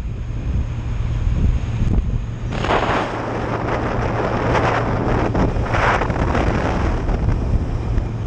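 Motorcycle riding with wind buffeting the microphone over a steady engine hum. A louder rushing noise swells in about two and a half seconds in, peaks twice and fades near the end.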